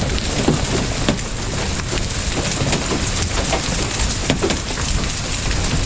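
Hail and heavy rain coming down: a steady downpour hiss with many sharp clicks of hailstones striking hard surfaces.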